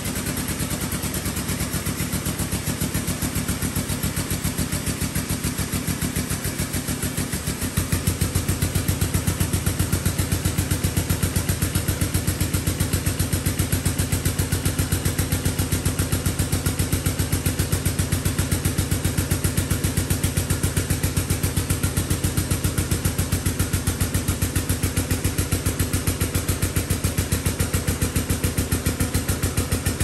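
A motor running steadily with an even, rapid pulse. About eight seconds in it gets louder and deeper and then holds steady.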